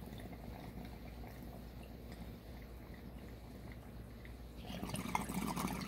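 Water in a glass bong bubbling as smoke is drawn through it: faint at first, then louder bubbling for about the last second.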